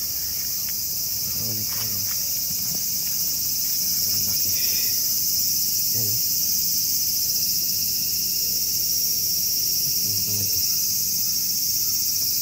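A chorus of insects makes a dense, steady high-pitched buzz that does not change throughout.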